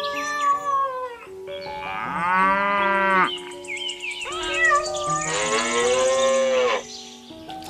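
Two long cow moos, likely an added sound effect, with a shorter falling animal call at the start, over soft background music.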